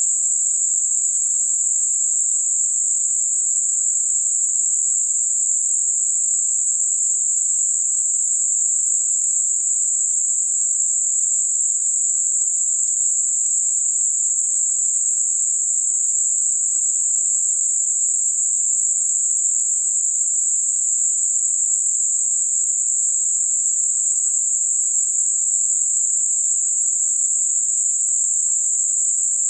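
Gaussian narrow-band noise centred on 7.5 kHz: a steady, unchanging high-pitched hiss that fades off above and below the centre. It is a generated sound for masking high-frequency tinnitus.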